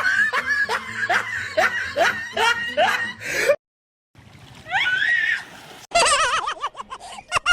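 A person laughing in a quick run of short syllables, about three a second, cut off suddenly after about three and a half seconds. After a brief gap comes a short gliding cry, then a wavering, warbling voice-like sound near the end.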